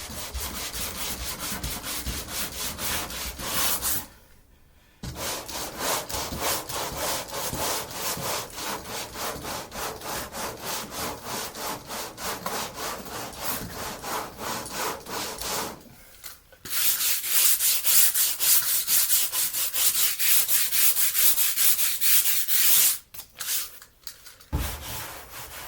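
Coarse 40-grit sandpaper worked by hand over body filler in quick back-and-forth strokes, a few per second, while the filler is still soft and not fully cured. The sanding stops briefly twice, runs louder for several seconds after the second pause, then stops near the end.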